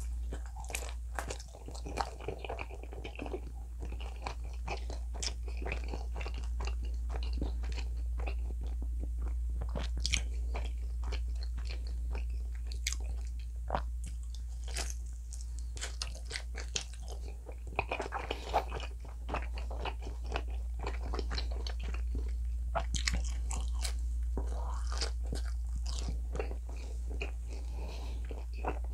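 Close-miked biting and chewing of a pizza slice, the baked crust crunching in many small crisp strokes, over a steady low hum.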